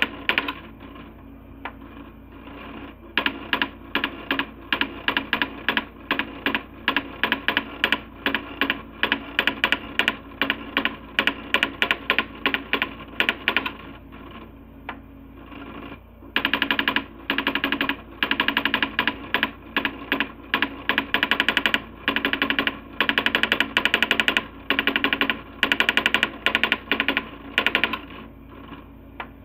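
Coleco Adam SmartWriter daisy wheel printer printing graphics: runs of rapid, typewriter-like hammer strikes, broken by a few brief pauses.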